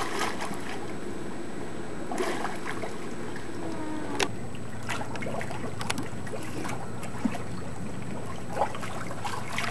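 Light splashing and lapping of swimming-pool water as swimmers move and dive under the surface, over a steady low background hum.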